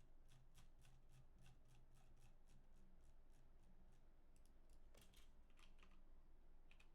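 Faint clicking on a computer keyboard, a few quiet clicks a second, with a short run of sharper clicks about five seconds in.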